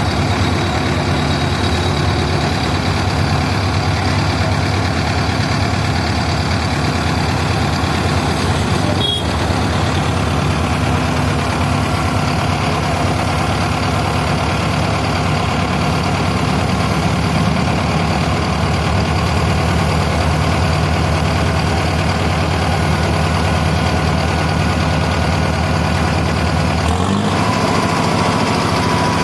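Engine of a tractor-mounted water-well drilling rig running steadily, with a short shift in its pitch near the end.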